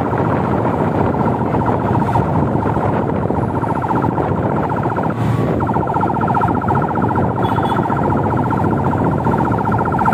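Emergency-style siren from the motorcade's escort pickup, holding a wavering tone and then switching about halfway through to a rapid warble, over a steady rumble of wind on the microphone and motorcycle and car traffic.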